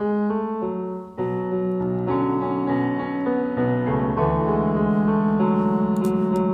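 Background music: a solo piano cover of a K-pop song, with a brief break about a second in.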